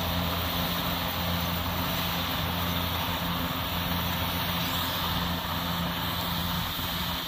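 Kubota DC-70 Plus rice combine harvester running steadily under load as it cuts standing rice: a constant diesel engine drone with its threshing machinery.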